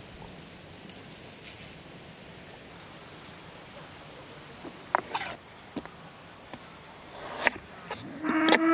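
A chef's knife cutting onions on a wooden cutting board: a few sharp knocks a little after halfway, then regular chops. Near the end a long, steady animal call starts up and becomes the loudest sound, with the chops still going under it.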